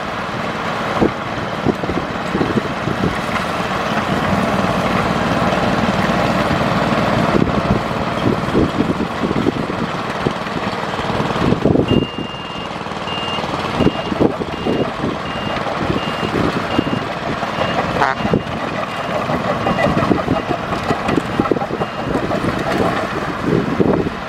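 Heavy earthmoving machinery, a bulldozer among it, running steadily under load with irregular knocks and clanks. About halfway through, a reversing alarm starts beeping at about two beeps a second and goes on for some ten seconds.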